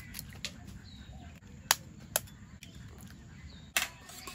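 Metal spoon clinking against a stainless-steel bowl while beating eggs: a few sharp, separate clinks, the loudest a little before two seconds in and near the end.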